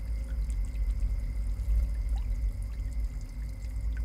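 Steady low hum under a faint even hiss of background ambience, with no distinct events.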